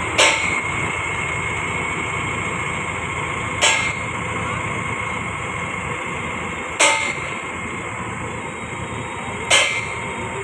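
Mahindra Novo tractor engine idling steadily, with a sharp metallic clang about every three seconds, four in all.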